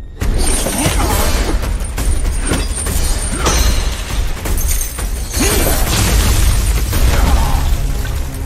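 Fight-scene sound effects that start suddenly: a dense run of hits and ice shattering over a heavy low rumble, with music underneath.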